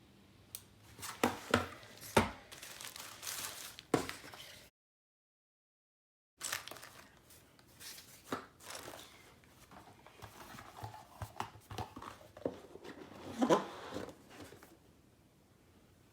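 Unboxing handling of a keyboard's packaging: crinkling and rustling with scattered sharp knocks and clicks, irregular rather than rhythmic. The sound cuts out to dead silence for about a second and a half, a third of the way in, then resumes.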